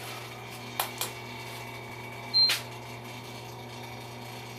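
Switches and knobs clicking on a machine's control panel: two sharp clicks about a second in, then a louder click with a short high beep about two and a half seconds in, over a steady electrical hum from the running machine.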